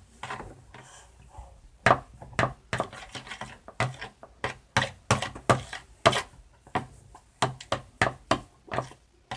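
Spoon knocking and clicking against the side of a bowl while stirring shampoo and salt together, quick irregular taps about three a second, starting about two seconds in.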